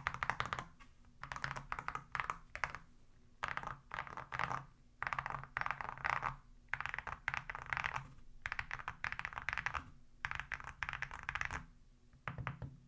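Custom gasket-mounted mechanical keyboard with Gateron Root Beer Float switches and ceramic keycaps being typed on in quick bursts of keystrokes with short pauses between them, a poppy clatter likened to bubble wrap.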